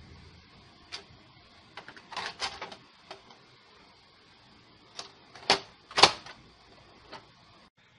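A few sharp, irregular clicks and knocks over a steady faint hiss. The two loudest come close together about five and a half and six seconds in.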